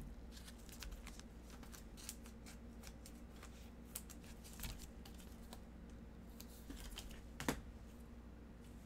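Trading cards being handled in gloved hands: faint scattered clicks and rustles as cards are flipped and slid through a stack, with one sharper click about seven and a half seconds in, over a steady low hum.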